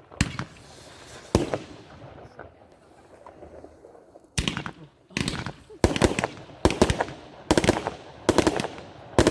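Consumer firework batteries firing shots. The last shots of a Weco Stormy Flash battery come in the first second and a half, then after a pause of about three seconds a Lonestar Brocade Crown battery starts firing a steady string of shots, roughly one every three-quarters of a second.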